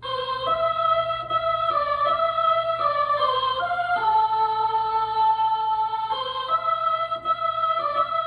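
Nord Electro 3 stage keyboard playing a melody of held, sustained notes over chords, starting abruptly and changing pitch about every half second, with one longer held note about four seconds in.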